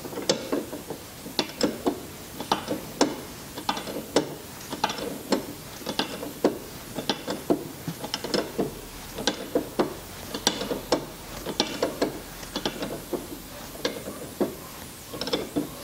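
Ratchet wrench clicking in short runs of back-and-forth strokes, a series of sharp clicks, as the central nut on the front strut's top mount is tightened.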